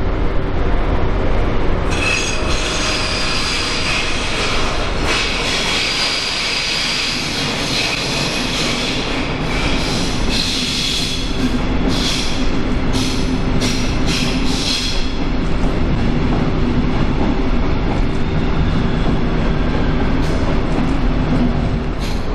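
Train moving along a station platform, with high-pitched wheel squeal from about two seconds in that breaks up into short squeals and stops about fifteen seconds in, over a steady low hum and rumble.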